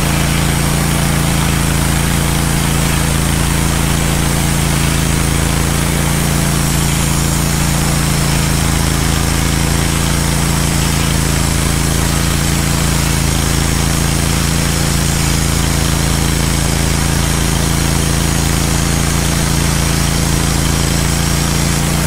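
Wood-Mizer LT15 band sawmill running steadily under load, its band blade cutting a slab off a cedar log. The sound is loud and even.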